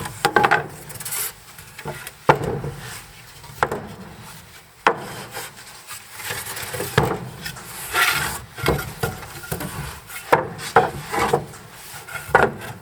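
Wood being handled during cabin building: a string of irregular wooden knocks and clatters with scraping and rubbing between them.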